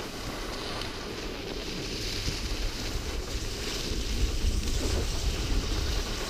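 Wind buffeting a moving skier's action-camera microphone, over the hiss of skis sliding on packed snow; the low rumble grows stronger about four seconds in.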